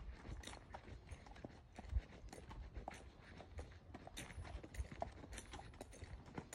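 Hooves of a horse walking on hard, dry dirt, with uneven clops and thumps several times a second; the loudest thump comes about two seconds in. Footsteps of someone walking behind mix in with the hoofbeats.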